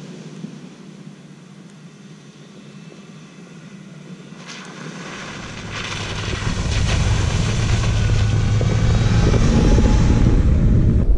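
Jeep Wrangler Unlimited approaching on a snow-covered dirt track and passing close by, growing steadily louder over the last several seconds. Its engine rumbles under the hiss of its tyres through wet snow and slush.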